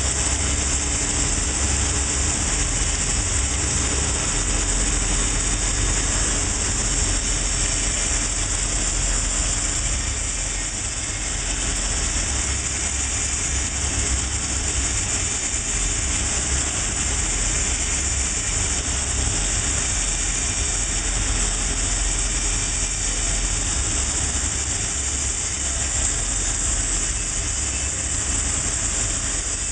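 Butler Newall CNC cylindrical strut grinder running, its wheel grinding a long metal shaft under flowing coolant: a steady hiss over a low machine hum.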